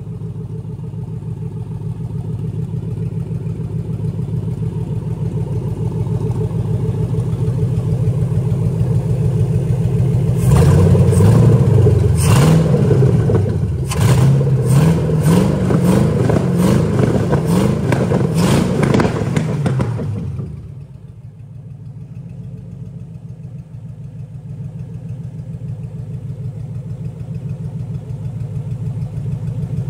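A 5.3 L LM7 V8 engine from a 2007 Chevy Silverado idles steadily. About ten seconds in, it is revved by hand at the throttle several times in quick succession for about ten seconds, then settles back to a steady idle.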